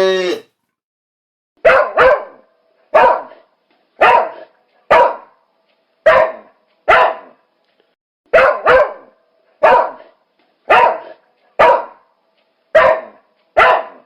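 Dog barking: about fourteen short, sharp barks, roughly one a second, some in quick pairs. The tail of a cow's moo ends in the first half-second.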